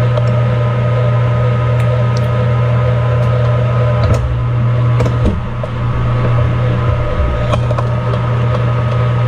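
Metal lathe running with a steady hum while a twist drill fed from the tailstock bores deep into a part spinning in the chuck. A few light clicks come about four and five seconds in.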